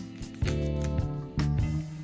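Background music: a plucked guitar tune, with new chords sounding about once a second.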